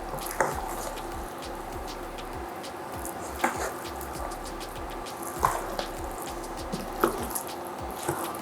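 A spoon stirring mackerel into a pot of thick sweet potato pottage, knocking sharply against the pot about five times, over a steady low hum.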